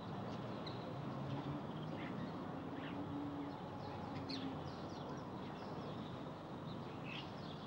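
Garden ambience: a steady faint hiss with scattered short bird chirps and calls.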